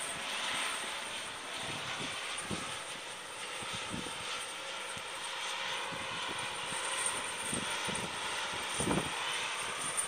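Blizzard wind blowing steadily, with several low thumps of gusts hitting the microphone, the strongest near the end.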